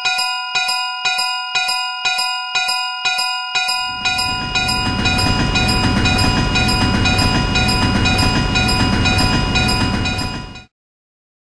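Railroad level-crossing warning bell ringing about three times a second. From about four seconds in, a train rumbles past under the bell. Both cut off suddenly about a second before the end.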